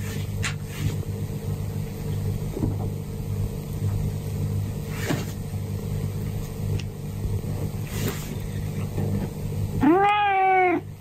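Orange tabby cat meowing once near the end, a single call about a second long that rises, holds and dips slightly, over a low steady hum. It is the cat's wake-up call to its sleeping owner.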